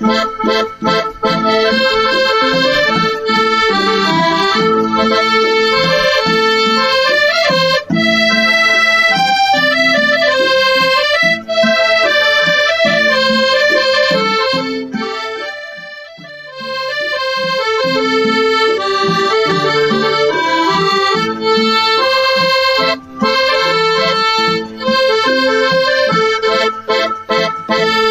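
Golden Cup piano accordion playing an instrumental melody over sustained lower notes. The playing dips briefly about sixteen seconds in, then carries on.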